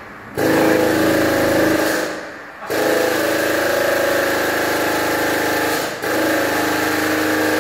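A machine motor in a body shop runs with a steady, even hum in three bursts, switching off briefly about two seconds in and again for a moment around six seconds.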